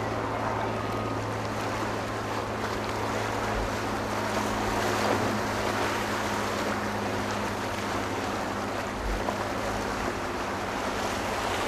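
A motorboat engine drones steadily, with water rushing and wind on the microphone.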